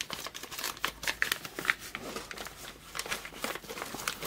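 Thin clear plastic bag crinkling in the hands around a pair of bonsai pruning shears, in small irregular crackles as the bagged shears are tucked into a canvas tool roll.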